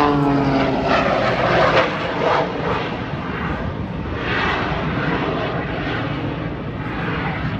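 Aerobatic biplane's piston engine and propeller during a display routine. It is a rough, uneven drone that swells and fades a few times as the aircraft climbs and dives.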